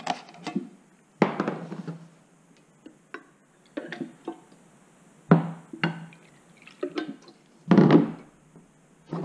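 A metal can of denatured alcohol and a small stainless steel cup being handled: the cap comes off, a little alcohol is poured into the cup, and the can and cup are set down with several separate thunks and knocks.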